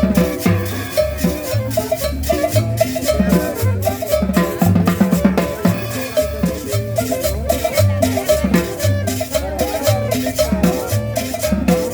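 Latin dance music with a steady bass beat, drums and shaken maracas.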